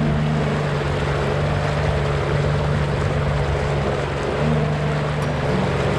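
Jet ski engine running at a steady cruising speed over the rush of water, its note shifting slightly a couple of times in the second half.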